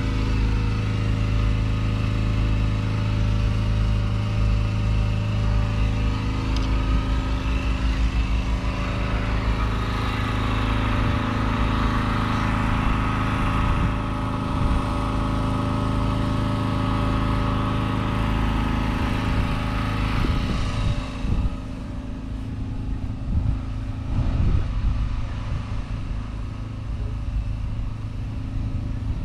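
Engine idling steadily. About two-thirds of the way in it becomes quieter and duller, and wind gusts buffet the microphone.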